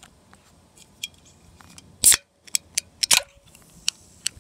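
Fingers working the pull tab of an aluminium Coca-Cola Zero Sugar can being opened: a series of sharp clicks and snaps, the loudest about two seconds in and another loud snap just after three seconds.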